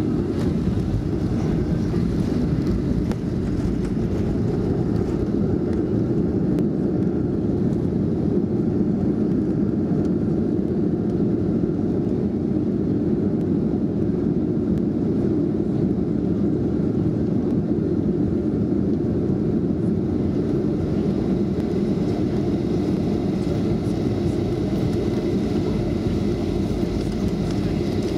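Steady low rumble of a Boeing 737-400 jet airliner heard from inside the cabin over the wing as it lands and rolls out on the runway, with flaps down and spoilers raised.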